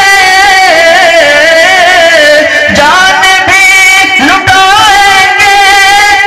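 A man sings Urdu verse into a microphone in long, drawn-out melismatic notes, wavering and gliding between held tones with no clear words. It is loud and amplified.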